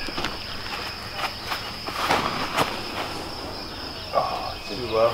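Steady high-pitched chirring of insects, with a few short scuffs of footsteps in the middle and a brief voice near the end.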